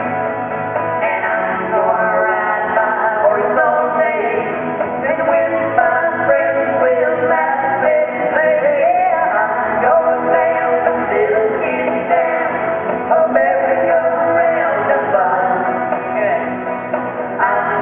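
Live song on electric guitar with a man singing, played through a PA.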